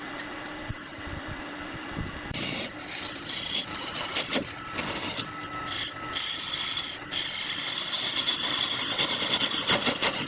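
Wood turning on a lathe: a tool scraping against the spinning wood over the steady hum of the lathe motor, getting louder after about six seconds.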